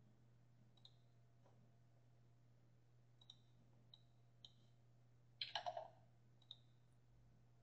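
Faint computer mouse clicks over near silence: scattered single clicks, then a quick run of about four about five and a half seconds in.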